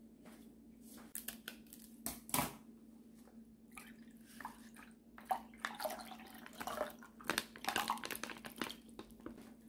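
A plastic drink pouch crinkling as it is handled and opened, then a dark liquid squeezed from it trickling and splashing into a ceramic mug, with the pouch crackling in the hand. A steady low hum runs underneath.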